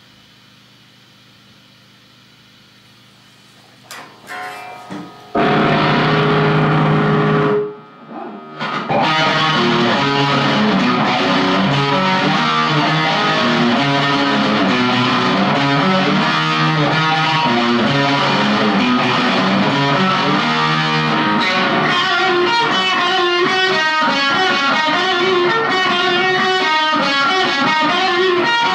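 Gibson Les Paul Studio electric guitar played through a Marshall Jackhammer JH1 distortion pedal into a Marshall MG15CD amp. Faint amp hiss at first, then a few picked notes about four seconds in, a held distorted chord, a brief stop, and steady riffing with faster runs near the end.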